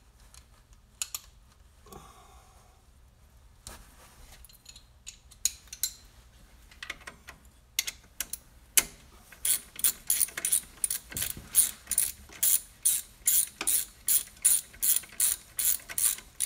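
Socket ratchet clicking as a mechanic turns the adjuster bolt of the AC belt tensioner. Scattered single clicks and small knocks come first, then from about halfway a fast, even run of clicks, about three a second, as he works the handle back and forth.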